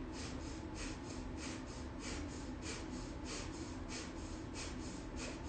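A woman breathing rapidly in and out through her nose with her mouth closed, a quick even train of sniffing breaths about three to four a second: a fast nasal breathing exercise, like a dog panting but through the nose.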